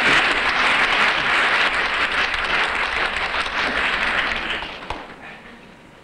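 Theatre audience applauding, dying away about five seconds in.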